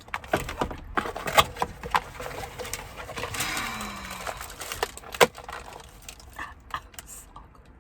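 Eating sounds: cheesy bread being picked up, bitten and chewed, with many small mouth clicks and smacks and a brief low falling hum about halfway through.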